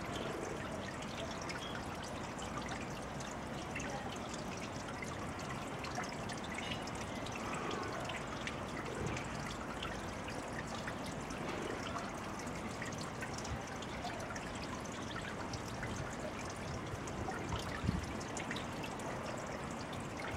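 Steady trickle of running water into a garden pond, with a brief knock near the end.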